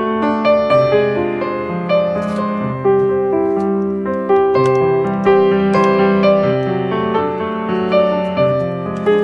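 Background piano music: a melody of struck notes, changing about once or twice a second, over lower held notes.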